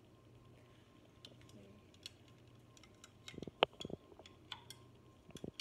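Small spoon clicking and tapping against a clear plastic cup as it stirs, with a quick run of louder knocks about three and a half seconds in.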